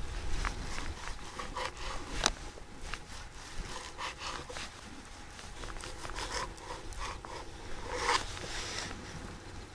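Kitchen knife slicing a raw fish fillet into sashimi on a bamboo cutting board: short drawing strokes through the flesh and light scrapes and taps of the blade on the board, with one sharp click about two seconds in.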